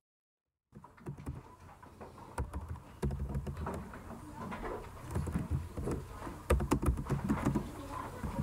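Sporadic clicks of keyboard typing over the low stir and soft thuds of a classroom, after a short dead-silent gap at the start.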